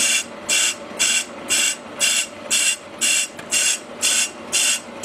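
Brake lathe cutting bit scraping a Willys Jeep brake drum in regular bursts, about two a second, with a steady hum between them. It is an interrupted cut: the drum is way out of round, so the bit only catches part of each turn rather than cutting all the way around.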